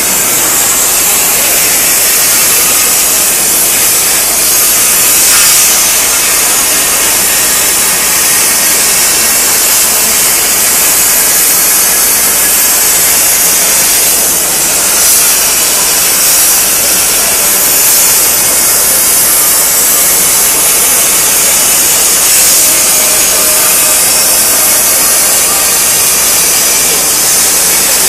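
CNC thermal cutting torch cutting metal: a loud, steady hiss, strongest in the highs.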